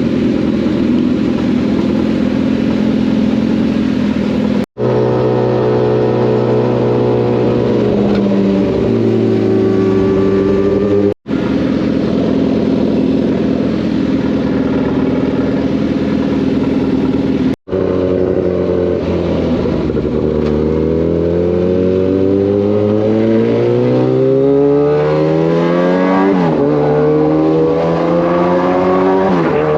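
Kawasaki sport motorcycles' inline-four engines accelerating hard, the pitch climbing through each gear and dropping at the shifts, several times over. The sound breaks off in three brief dropouts.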